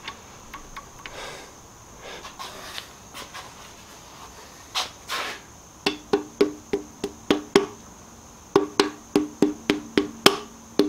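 Rubber mallet tapping a connecting-rod cap down onto its rod on a Porsche 944 2.5 engine's crankshaft, seating the cap. The taps come in two quick runs of even strikes, each with a short ring from the metal, after faint clicks as the cap is set in place by hand.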